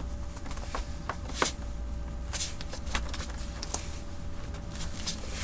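Scattered light clicks and taps of a clear plastic UAG Plyo case being handled on a 16-inch MacBook Pro, over a steady low background hum.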